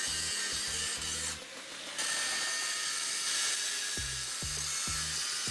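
Angle grinder grinding the outer surface of a turning cast truck brake drum: a steady rasping hiss that dips briefly about a second and a half in. Background music with a deep bass beat plays under it at the start and again near the end.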